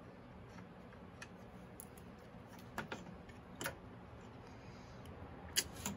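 Light, sharp clicks and taps scattered through, about half a dozen, the loudest near the end: the Delco Remy rectifier's metal housing being handled and seated on its engine mounting.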